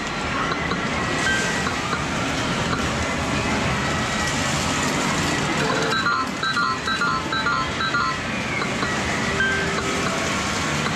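Game-centre din from many medal game machines: a steady, dense wash of machine noise, with a short run of electronic beeping notes around six seconds in.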